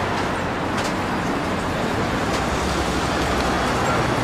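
Steady city street noise: road traffic and a general low hum, with a few faint ticks.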